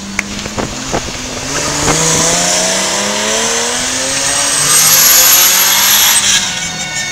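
Ferrari sports car's engine revving up, its pitch climbing in steps as the car accelerates through a turn. The loudest part, about five to six seconds in, is a rushing hiss with a thin high tone, like tyres squealing.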